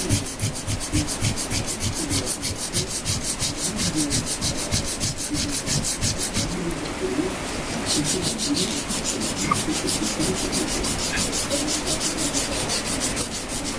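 Sandpaper rubbed rapidly back and forth by hand over the welded metal of a motorcycle footrest holder, about five strokes a second, smoothing the weld bead to a finish. The strokes stop for about a second and a half midway, then resume.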